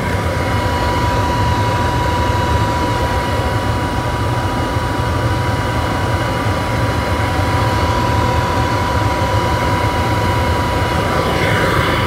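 Pressure-fed oil burner firing a tilting-hearth melting furnace at full power: a steady, loud jet-engine-like roar of flame and blower, with a steady high whine running through it.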